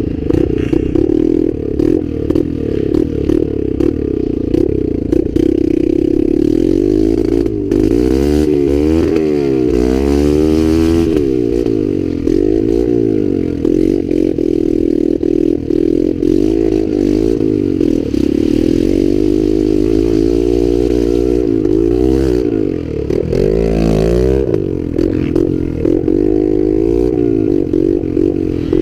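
Dirt bike engine running while riding, with some clatter; its pitch rises and falls with the throttle several times, most clearly about a third of the way in and again a little after the middle.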